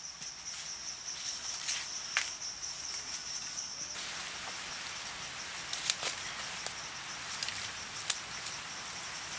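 A steady high-pitched insect drone over forest ambience cuts off about four seconds in. Scattered sharp clicks and light rustles run throughout as hands handle thin wooden poles and twigs on dry, leaf-covered ground.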